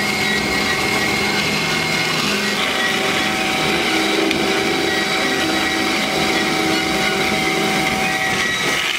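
DoAll C4100A horizontal band saw running, a steady mechanical drone with several steady whining tones on top.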